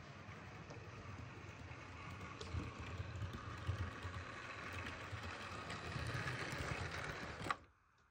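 Model Class 43 train running on the layout track: a steady motor whirr and wheel rumble with a few sharp clicks, growing louder as it comes closer, then cutting off suddenly near the end.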